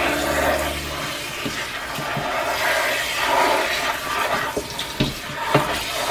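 Water spraying from a hand-held sink sprayer onto collard greens in a metal bowl, running steadily, with a few light knocks.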